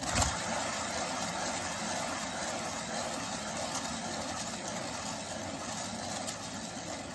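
Spinner turning a painted ceramic tile: it starts with a click, then gives a steady whirr.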